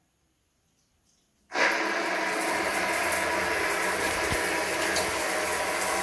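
Water running steadily, starting suddenly about a second and a half in after near silence.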